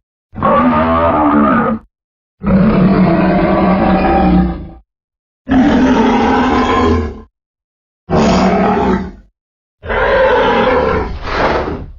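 Five separate roars from a made-up dinosaur (Mapusaurus) sound effect, pieced together from movie-monster roars and big-cat sounds. Each roar lasts one to two and a half seconds, with a short silence between them.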